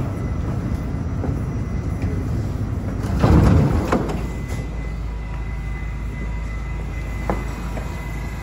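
R68 subway car standing in the station with a steady low rumble, and a brief loud burst about three seconds in as the doors open. A thin steady high tone sets in just after.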